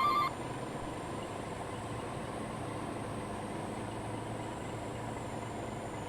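A vehicle engine runs steadily with a low hum and rumble. A short electronic beeping, in pulses, cuts off just after the start.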